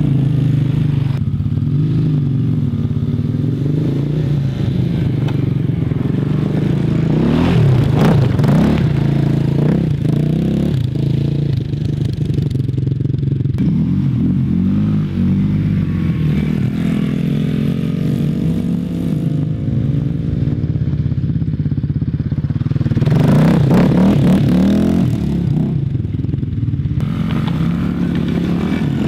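Small youth quad bike's engine running and revving as it is ridden, its pitch rising and falling with the throttle. It grows louder twice as the quad passes close, once about a quarter of the way in and again near the end.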